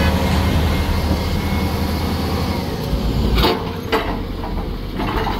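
A heavy machine's engine running steadily, with several sharp knocks or clanks about three and a half, four and five seconds in.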